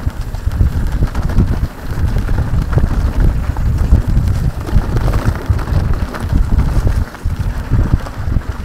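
Loud, gusty wind rumble buffeting the microphone.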